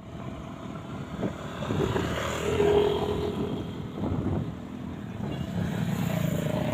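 Road traffic: vehicle engines running past, with a brief steady tone about two and a half seconds in.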